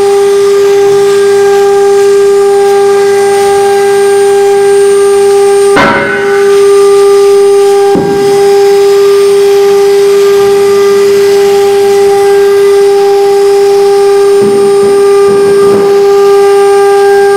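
CNC router spindle running at high speed with a loud, steady high-pitched whine while its cutter engraves into a wooden board. The whine is briefly disturbed about six seconds in and again at eight seconds, with a few short bursts of cutting noise near the end.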